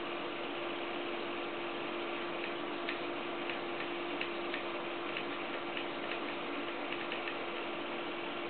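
H-bot 3D printer running a dry test without filament: its stepper motors drive the print head over the bed with a steady hum, and light ticks come at irregular intervals.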